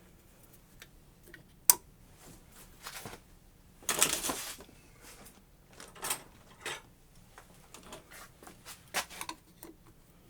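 Scattered sharp clicks and a short metallic clatter of hand tools and small metal parts being handled: vice grips and the angle grinder's loosened screw, just freed with a little torch heat.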